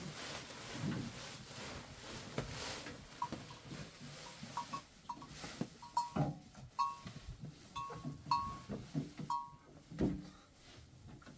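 A flock of sheep and goats crowding a wooden feed trough. Feed pours from a sack and the sack rustles for the first few seconds. Then come a run of short, high calls from the animals, several in a row, mixed with jostling and eating noises.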